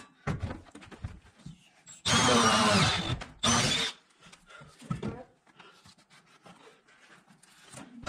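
Cordless drill spinning a hole saw through a wooden subfloor, in two loud spells, about two seconds in and again just before four seconds, with light knocks and scrapes between.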